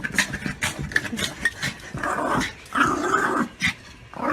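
A dog growling in short rasping bursts, the first about two seconds in and a second right after, with scratchy clicks before them.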